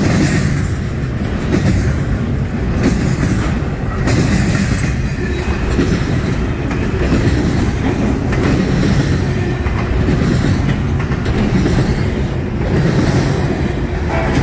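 Double-stack intermodal freight train of container well cars rolling past close by: a loud, steady rumble of steel wheels on rail with clickety-clack as the wheels cross rail joints.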